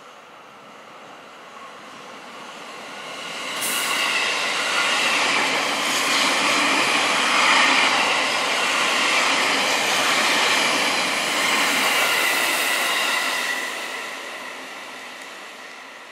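JR East E653 series electric multiple unit passing at speed: the rush of its wheels on the rails swells as it approaches, stays loud for about ten seconds with a high whine among the noise, then fades away as it recedes.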